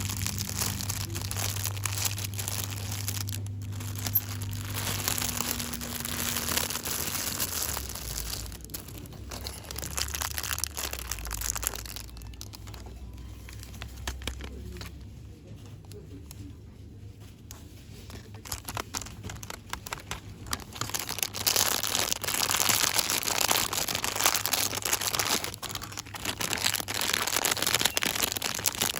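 Product packaging being crinkled and rustled by hands in quick, aggressive ASMR handling. The rustling eases off in the middle and grows louder again in the last third.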